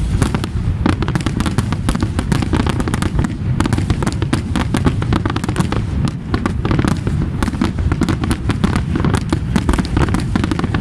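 Aerial fireworks display: many shells bursting in quick succession, a dense run of sharp cracks and bangs over a continuous low rumble.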